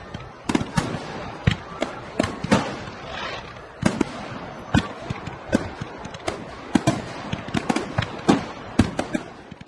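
Fireworks going off: an irregular string of sharp bangs, about one or two a second, over continuous crackling.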